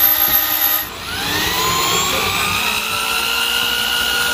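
Electric drum drain auger (drain snake) motor running, cutting out briefly about a second in, then spinning back up with a rising whine that levels off.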